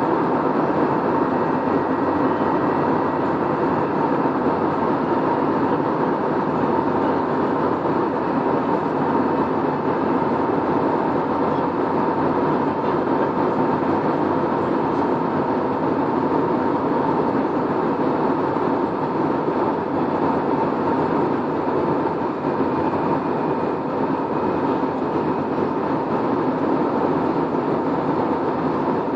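Steady airliner cabin noise in flight: an even rush of engine and airflow noise with a thin steady tone running through it.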